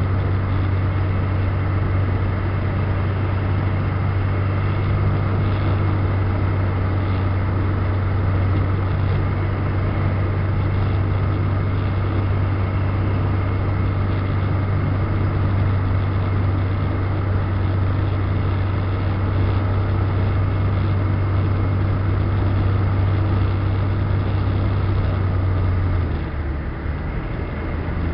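Fantasy 812 ultralight's engine and propeller droning steadily, heard from inside the cockpit. About two seconds before the end the drone drops lower and quieter as power is eased back on the landing approach.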